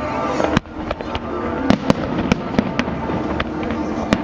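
Fireworks bursting: one sharp bang about half a second in, then a run of separate bangs over the rest of the stretch, over music.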